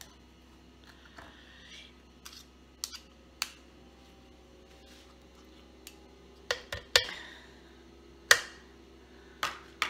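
Metal measuring spoons clicking against each other and against the rim of a plastic blender jar as tomato paste is scraped in. The clicks are sharp and irregular: a few light ones at first, then louder ones in the second half, the loudest about eight seconds in.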